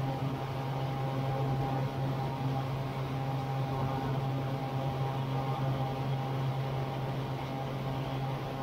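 Air Création Tanarg microlight trike's engine and pusher propeller droning steadily at climb power during the initial climb after takeoff, with a constant hiss over it.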